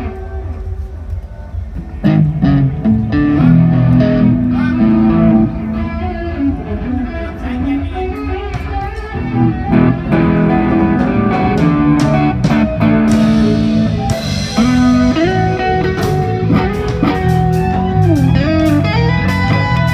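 A live band playing in a sound check: electric guitar carrying a melody over a bass line. A held note fades before the full band comes in about two seconds in, and there are sliding notes near the middle of the second half.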